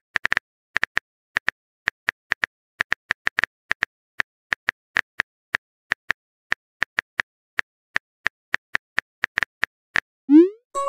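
Phone keyboard typing clicks from a texting-story app: irregular light taps, about three to four a second, as a text message is typed. Near the end they stop and a short rising whoosh plays as the message is sent.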